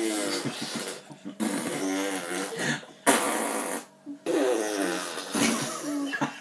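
A man and a toddler blowing raspberries with their lips: several long buzzing raspberries one after another, with short pauses between.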